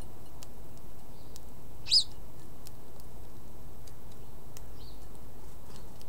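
A small songbird gives a single short, high chirp about two seconds in, with a fainter call near the end, over steady low background noise and a few faint clicks.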